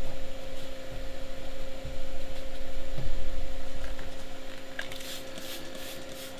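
Trigger spray bottle squirting acid onto paper towels laid over gelcoat: quick hissy squirts, about three a second, starting about five seconds in. Under it a steady hum and low rumble.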